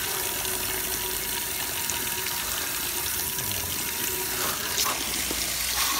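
Water from a garden hose spray nozzle spraying onto the rear grille and condenser coil of a TCL window air conditioner: a steady hiss of spray and spatter as the coil is washed clean of dirt, with a couple of brief louder moments near the end.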